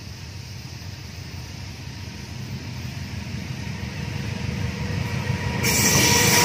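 Diesel locomotive hauling a passenger train, approaching on a curve: its low rumble grows steadily louder. Near the end a sudden high hiss of wheels on rail, with a faint squeal, sets in as the locomotive comes close.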